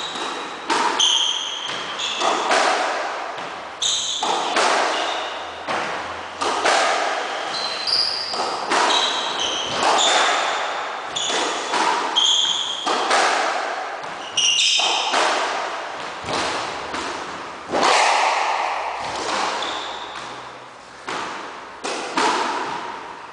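Squash rally: the ball smacked by rackets and thudding off the court walls about once a second, each hit ringing on in the hall, with short high squeaks from sneakers on the wooden floor between hits.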